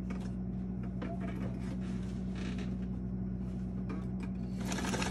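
1970s electric sewing machine: a steady low motor hum, then about four and a half seconds in it takes off, stitching fast with a rapid, even needle clatter.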